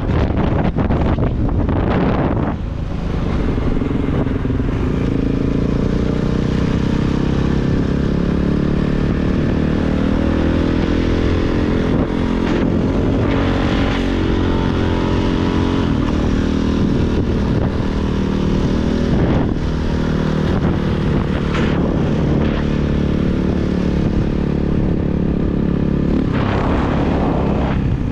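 Kawasaki KX450 dirt bike's single-cylinder four-stroke engine being ridden hard, its pitch rising and falling again and again as the throttle is opened and closed and the gears change. Wind buffets the microphone in the first couple of seconds.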